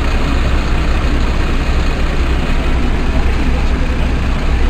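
Parked fire engine's diesel engine idling, a steady low rumble.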